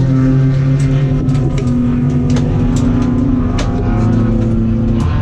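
Race car engine running at speed on track. Its note stays steady and shifts slightly lower in pitch a few times, with frequent sharp clicks and rattles over it.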